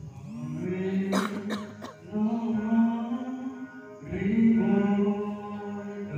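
A male vocalist singing into a handheld microphone in long held notes, breaking for breath about two and four seconds in.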